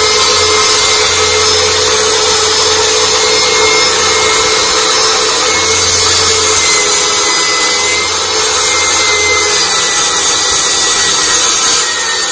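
Ryobi benchtop table saw running under load while ripping a plywood sheet: a steady whine over the continuous cutting noise, easing slightly near the end.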